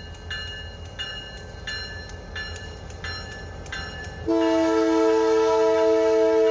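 Grade-crossing bell ringing about one and a half strikes a second over the low rumble of an approaching diesel freight locomotive. About four seconds in, the lead locomotive's multi-note air horn sounds a loud, steady chord.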